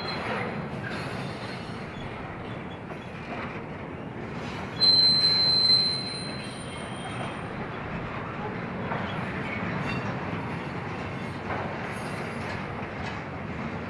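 Union Pacific intermodal freight train rolling past with a steady rumble of wheels on rail and a few faint clacks. About five seconds in comes a loud, high-pitched steel wheel squeal lasting about a second.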